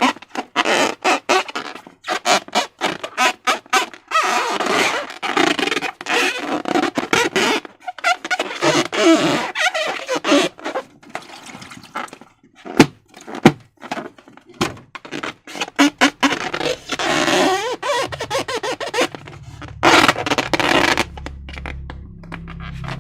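Slime being squished and stretched by hand: sticky, wet crackles, clicks and squelches in quick, irregular succession. Low background music comes in near the end.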